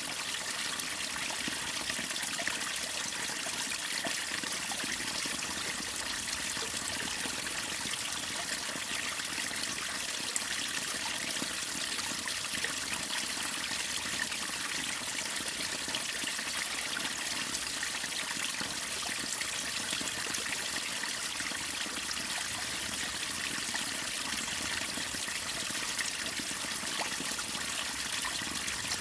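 Water of a waterfall and river splashing and trickling: a steady, even rush with most of its sound in the higher pitches.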